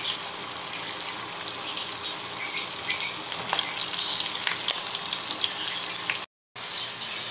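Tofu strips deep-frying in hot oil in a grill pan, a steady sizzle with scattered crackling pops; the tofu is fried golden brown. The sound breaks off for a moment near the end.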